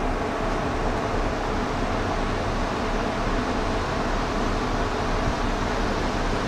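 Steady mechanical hum with a hiss over it, unchanging throughout.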